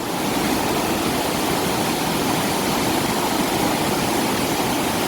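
Fast mountain river rushing over rocks: a steady, loud wash of water noise.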